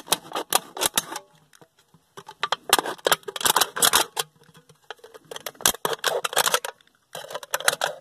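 Utility razor knife slicing into a thin aluminium beverage can: rapid crackling clicks and scrapes in about four spells, with short pauses between.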